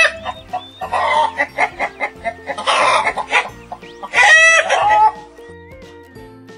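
Chickens clucking in four loud bursts over light background music, which carries on alone for the last second and a half.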